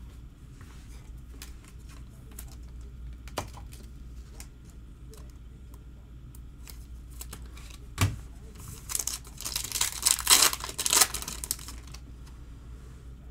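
Light taps and clicks of trading cards being handled, a knock about eight seconds in, then a couple of seconds of loud crinkling and tearing as a foil card-pack wrapper is torn open.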